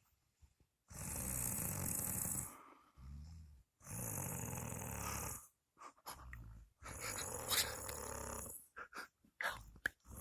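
A woman snoring in her sleep, a long snore every two to three seconds with gaps between breaths.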